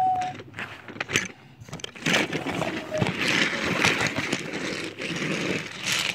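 Toy train running on its track: a rumbling, clattering run with many sharp clicks. A steady high tone cuts off just after the start.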